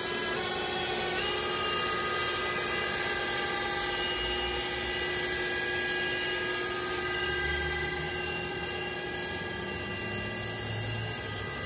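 Spindle of a 2011 Trident TR 45E CNC drilling and tapping center running unloaded with a steady whine of several tones. Its pitch steps up about a second in as the spindle speeds up, then holds at about 3,600 rpm.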